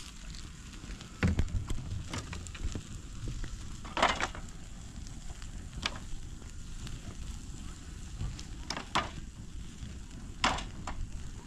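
Small wood fire of thin sticks burning and crackling, with scattered sharp cracks and pops, the loudest about four seconds in and near the end, along with light knocks as the sticks are shifted in the fire.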